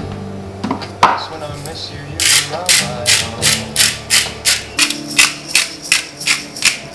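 Handheld spice grinder twisted over a dish: a run of short rasping grinds, about four or five a second, starting about two seconds in and stopping near the end. A single knock about a second in.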